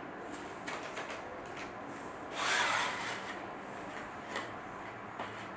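Handling noises as the shaft sections of a Minelab CTX 3030 metal detector are fitted together: a few light clicks and knocks, with a brief scraping slide about two and a half seconds in.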